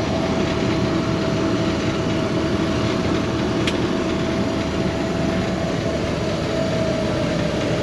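International 1480 combine running steadily during wheat harvest, heard from inside the air-conditioned cab: a constant machine drone with a steady whine over it.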